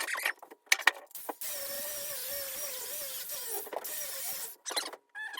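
A small electric power tool whirs against the steel axe head as it is cleaned of rust, its pitch wavering under load. It runs for about three seconds, stops briefly and starts again near the end, with a few short knocks before the first run.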